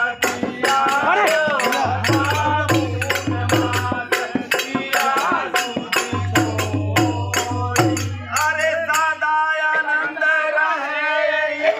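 Men singing together to a dholak drum and rapid, sharp hand-percussion strikes about three to four a second. The percussion stops about two-thirds of the way through while the singing goes on in long held notes.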